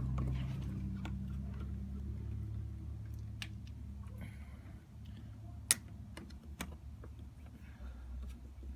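Scattered light clicks and taps of small hardware being handled while a doorbell is wired and mounted, with one sharper click a little past halfway, over a low steady hum.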